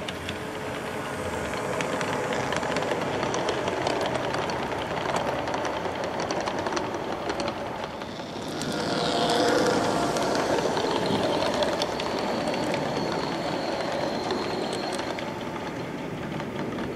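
G-scale model train, a Taurus electric locomotive pulling passenger cars, rolling along garden railway track: a steady rolling rumble with many small clicks of wheels over the rail, louder as it passes about two seconds in and again about nine seconds in.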